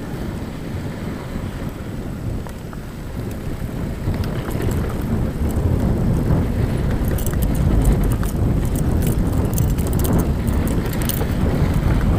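Wind rumbling on the microphone of a moving mountain bike, getting louder about four seconds in, with scattered clicks and rattles from the bike over the second half.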